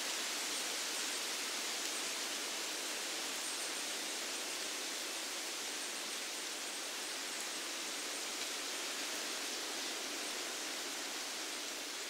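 Wind rustling through the leaves of broadleaf forest trees, a steady, even hiss with no gusts or breaks.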